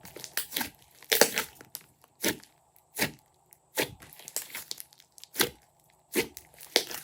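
Glossy slime being pressed and squished by hand, giving about ten sharp sticky pops and crackles, roughly one every two thirds of a second.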